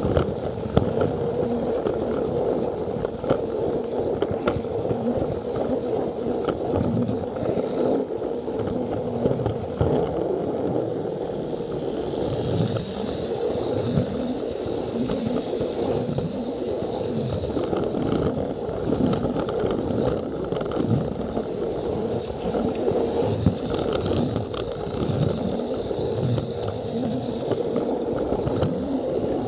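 Plarail toy train running along plastic track: a steady motor and wheel rolling noise with scattered clicks, and a higher whine joining about twelve seconds in.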